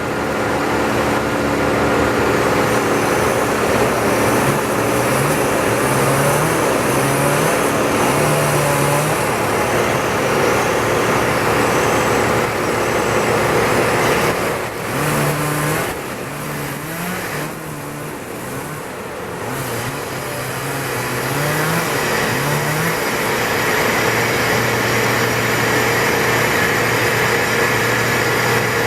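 Engine running loudly, its pitch stepping up and down as it is throttled again and again, easing off briefly past the middle before picking up again.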